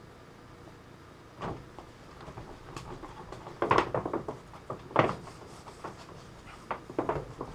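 A few separate knocks and clunks of objects being handled and set down, the loudest pair about four and five seconds in.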